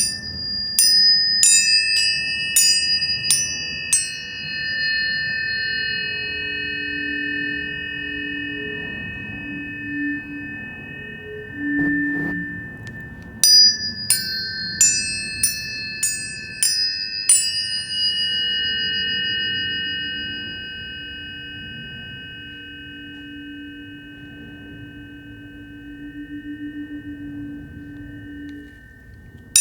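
Tuning forks struck in two quick runs of about six or seven strikes each, one at the start and one about 13 to 17 seconds in, every strike leaving a high pure tone ringing on for many seconds. A lower steady tone sounds underneath for much of the time.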